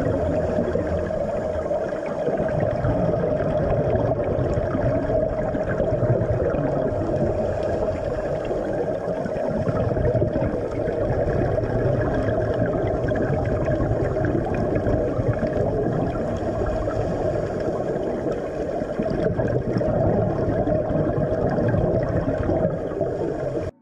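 Underwater ambience picked up by a diver's camera: a loud, steady rushing noise with a rumble underneath and a constant hum in the middle range, cutting off suddenly at the end.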